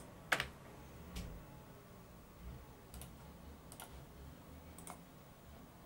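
A few isolated clicks from a computer keyboard and mouse, entering values in a dialog box and confirming it; the first click, just after the start, is the loudest, and fainter ones follow roughly a second apart.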